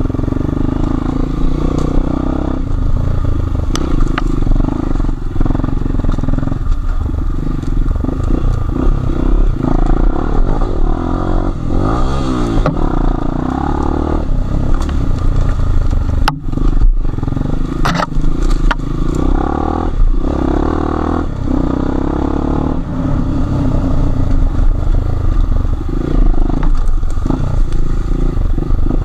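Enduro motorcycle engine revving up and down as it is ridden off-road, with the revs dropping and climbing again about twelve seconds in, and a few sharp knocks a few seconds later.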